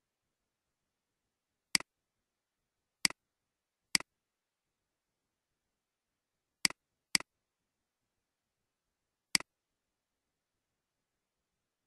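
Six sharp computer mouse clicks, irregularly spaced, with complete silence between them.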